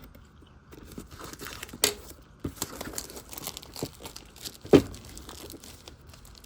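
Plastic shrink wrap being torn and crumpled off a model kit box: irregular crinkling and crackling with sharp snaps, the loudest snap about three-quarters of the way through.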